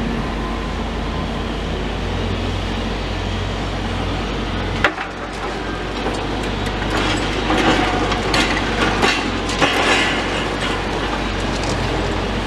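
Demolition excavator engine running steadily, with one sharp bang about five seconds in, then irregular clattering and cracking of broken concrete and rebar being worked.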